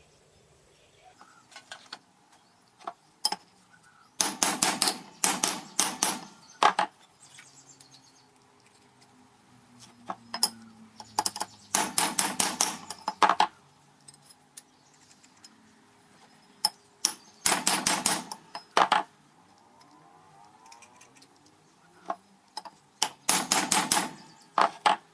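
Hammer blows on a slightly bowed metal plate to flatten it, in four bursts of quick, ringing strikes with a few single taps between. The plate is bouncing on a chipboard bench, so the bow is slow to come out.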